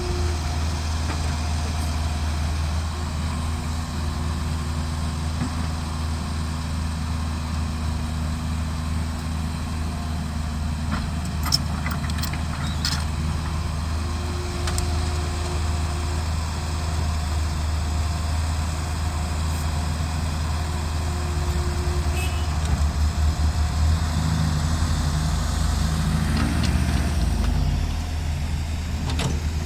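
Heavy diesel machinery engine running steadily with a deep hum, a few sharp metallic clicks about twelve seconds in, and the engine working harder and more unevenly for a few seconds near the end.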